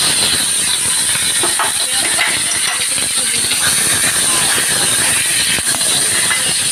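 Sliced onions sizzling in hot oil in a kadai, a loud steady hiss that began the moment they went into the pan.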